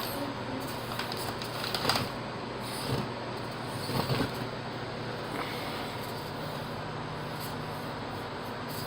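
Small electric motor and drivetrain of a 1/24-scale Redcat Racing Sumo RC crawler whirring steadily as it crawls over the course, with a few light knocks about two, three and four seconds in as the chassis and tyres bump over obstacles.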